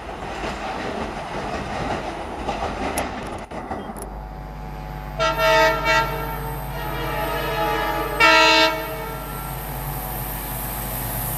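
Coaches of a departing train rattling over the rail joints. Then a WDP-4D diesel locomotive approaches with its engine running steadily and sounds its multi-tone horn twice, each blast under a second long, about three seconds apart.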